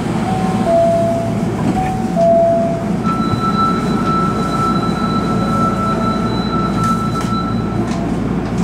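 Low steady hum of a subway train standing at a platform. Over it come a few short electronic notes stepping up and down, then a single steady electronic tone held for about five seconds, like a station or door signal tone.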